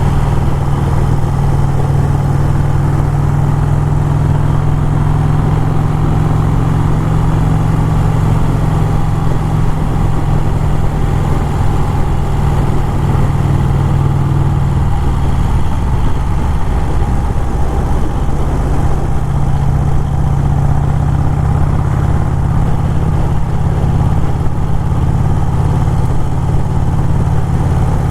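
Motorcycle engine running steadily while riding, under road and wind noise. The engine note drops back for a few seconds about halfway through, then picks up again.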